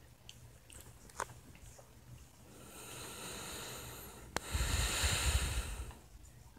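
A person's slow, deep breath close to the microphone: a long hissy inhale, a small click, then a louder exhale that buffets the microphone with a low rumble.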